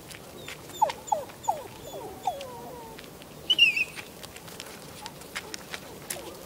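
Small dog whining, a string of about six short yelps that each fall in pitch, then a single short high squeak about three and a half seconds in.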